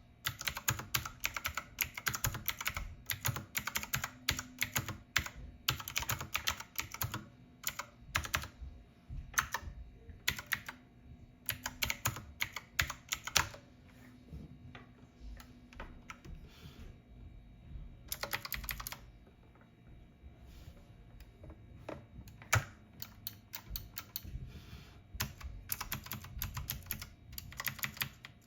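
Typing on a typewriter-style keyboard with round keycaps: fast runs of key clicks, broken by a couple of quieter pauses in the middle before the typing picks up again.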